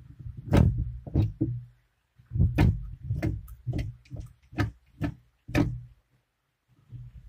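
Knife knocking against a wooden board while a bluegill is cut up: about a dozen irregular sharp knocks with a dull thud, stopping shortly before the end.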